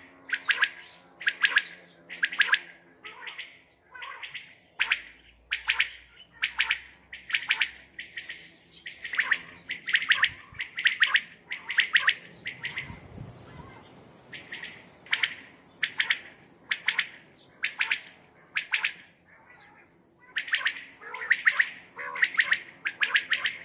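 Common quail calling: short phrases of a few quick, sharp notes, repeated about once a second, with a pause of a couple of seconds near the middle.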